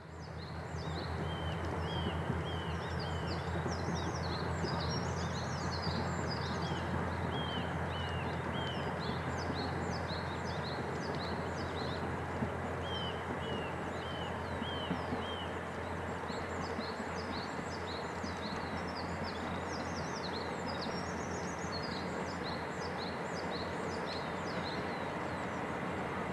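Several small birds singing and chirping, with a repeated run of short falling notes, over a steady low hum and background hiss.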